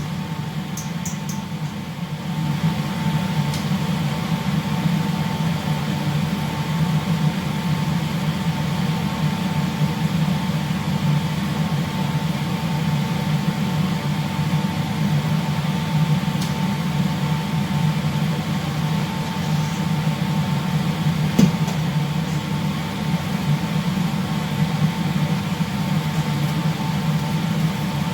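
Steady low machinery hum with a faint steady whine above it, and a single sharp click about two-thirds of the way through.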